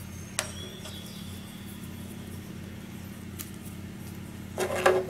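Plastic parts of a PVC prize figure being pressed together by hand: a sharp click about half a second in, a fainter one past the middle, and louder handling and clatter near the end, over a steady low hum.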